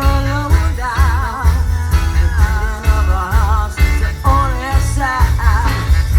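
Live band playing an upbeat pop-rock song, with a steady pounding beat of bass and drums under a wavering, sustained melody line.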